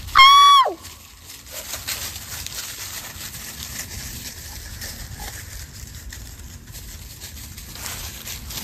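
A dog gives one short, high-pitched yelp just after the start, held briefly and then falling sharply in pitch. It is followed by light crunching of footsteps in dry leaf litter.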